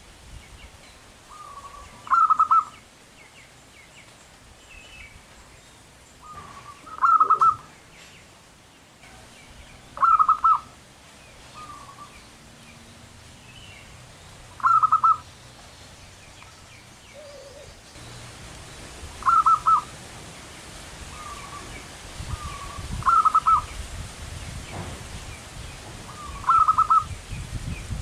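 Zebra dove (perkutut) cooing: seven short, loud bouts of its rolling, trilled coo, one every three to five seconds, with softer single notes between some of them. A low rumbling noise comes in about two-thirds of the way through.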